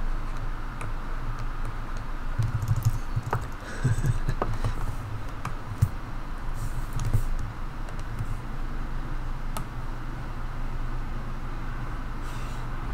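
Scattered clicks and taps of a computer keyboard and mouse, with a few dull thumps in the first half, over a low steady hum.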